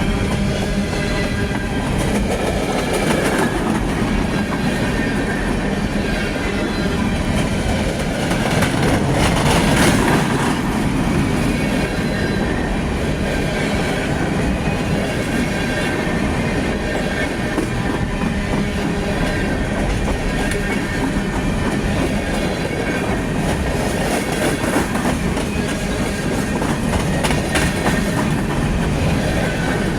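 Cars of a Union Pacific coal train rolling past, with a steady rumble and wheels clacking over rail joints, swelling slightly about a third of the way in.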